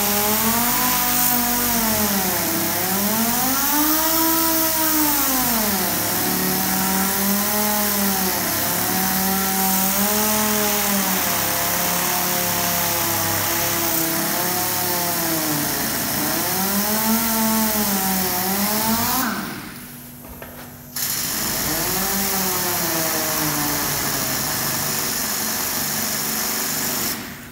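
Air-powered orbital sander with a 150-grit disc sanding a plastic bumper, its whine rising and falling in pitch as it is pressed on and eased off, over a steady air hiss. It stops about two-thirds of the way through, starts again a second and a half later and cuts out near the end: the sander is dying ('se muere la lijadora'), which the owner puts down to water in the compressor tank starving it of air.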